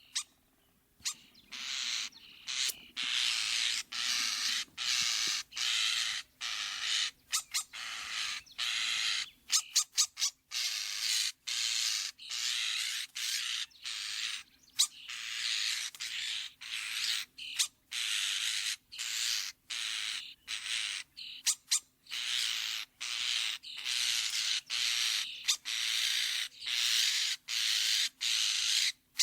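European starling giving a long series of harsh, rasping calls, each lasting about half a second to a second with short breaks between, mixed with a few sharp clicks.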